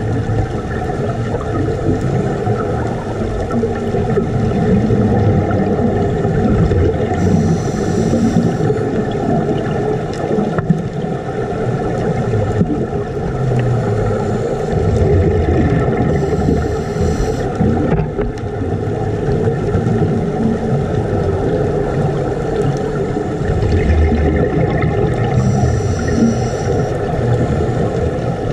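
Underwater sound of scuba divers' breathing and bubbles: a steady muffled rumble, with a brief higher hiss three times, about nine seconds apart, as a diver exhales through a regulator.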